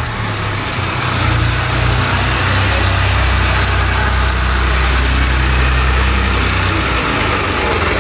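New Holland 3630 tractor's three-cylinder diesel engine running at low, steady revs as the tractor drives slowly past at close range.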